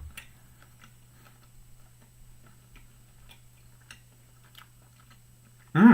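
Faint, irregular small clicks of someone chewing hickory-smoked bison meat, over a low steady hum. A short, loud vocal sound comes near the end.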